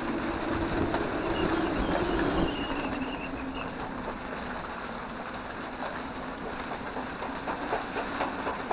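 Gusty wind blowing around an anchored sailboat, louder for the first couple of seconds and then easing, with a faint whistle early in the gust. Light irregular ticking in the second half.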